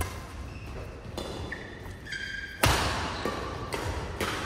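Badminton rackets striking a shuttlecock in a fast doubles rally: sharp smacks that echo in the hall, the loudest a hard hit about two and a half seconds in. Short high squeaks from shoes on the court mat come between the hits.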